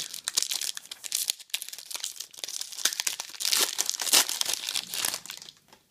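Foil trading-card pack being torn open and crinkled in the hands: a dense, sharp crackle of foil that dies away shortly before the end.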